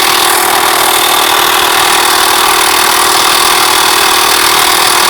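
12-volt tyre inflator compressor powered from a van battery, running steadily to pump up a motorbike inner tube: a constant loud hum and hiss with a steady drone.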